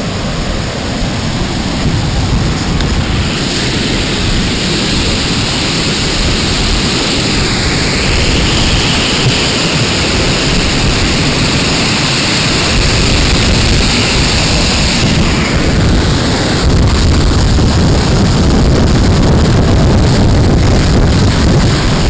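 Waterfall pouring down rocky cascades close by: a loud, steady rush of falling water, with wind rumbling on the microphone. It grows gradually louder toward the end.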